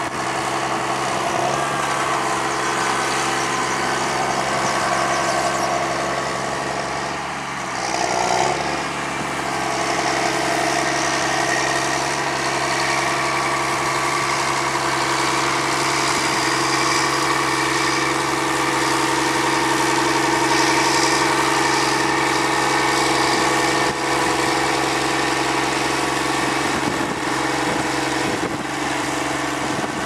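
Diesel engine of a Challenger MT rubber-tracked tractor running steadily while it turns with a mounted reversible plough. The engine note dips and then surges briefly about eight seconds in.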